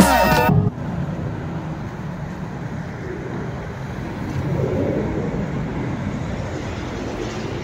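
Background music cuts off just after the start, giving way to a steady outdoor rumble of road traffic on a snowy street. The rumble grows a little louder around the middle.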